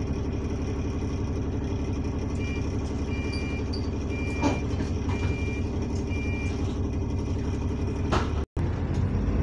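Bus diesel engine idling steadily, heard from inside the passenger saloon. In the middle comes a series of about five short, high beeps at one pitch, and there are a couple of clicks. The sound cuts out for a moment near the end.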